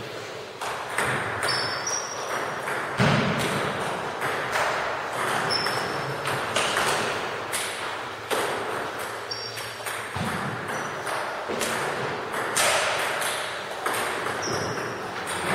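Table tennis balls clicking off bats and the table, an irregular series of sharp hits with a few short high pings, echoing in a large hall.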